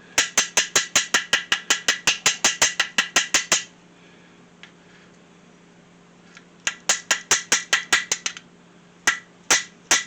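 A chipping hammer knocking slag off a fresh stick-weld bead: rapid metallic taps about six a second, in a long run, a pause, then two shorter runs near the end. A faint steady hum from the idling AC welder sits underneath.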